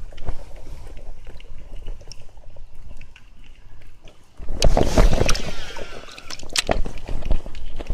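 Water sloshing and splashing around a float tube on a pond, with small knocks, then a louder splashing stretch of about two seconds beginning some four and a half seconds in.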